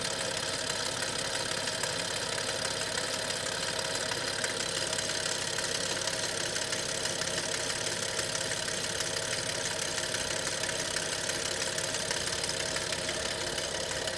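Audi S6 engine idling with a steady, fast metallic clatter, which the owner traces to the front of the engine at the timing case.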